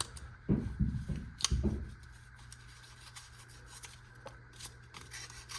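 Blade of an Ozark Trail folding pocket knife slicing through cardboard, going through easily. A cluster of cutting sounds with a sharp click comes in the first two seconds, then fainter scrapes and ticks.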